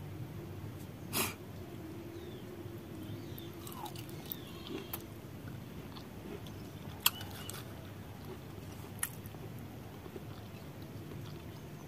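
A person chewing soft pieces of raw mango boiled with jaggery: quiet mouth sounds with a few short smacks or clicks, the clearest about a second in.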